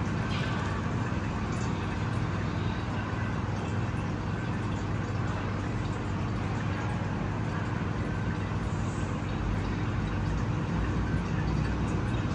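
Steady low rumble of background noise, even throughout, with no distinct events.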